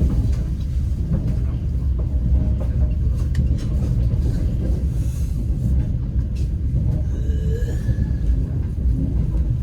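Moving passenger train heard from inside the carriage: a steady low rumble of wheels on the rails, with scattered clicks and knocks, and a brief faint high tone about seven seconds in.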